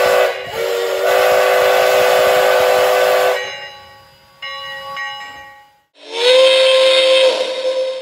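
A steam locomotive's chime whistle blows with several steady notes at once over a breathy hiss, in two blasts with a short break between them, then dies away to fainter tones. About six seconds in, another steam whistle, thought to be the Milwaukee Road Hiawatha's, slides quickly up to pitch and holds a multi-note chord.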